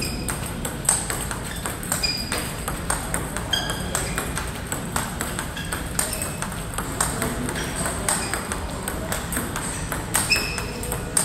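Table tennis ball in a fast forehand rally: quick alternating clicks of the ball off the paddles and pings of it bouncing on the table, about two to three hits a second.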